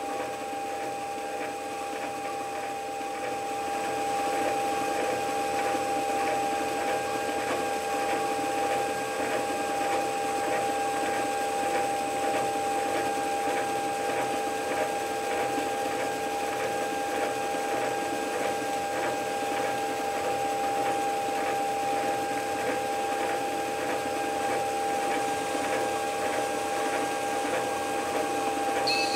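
Small metal lathe running steadily with a whine of several fixed tones while the turning tool takes a light finishing cut along the connecting rod's taper; a little louder from about four seconds in.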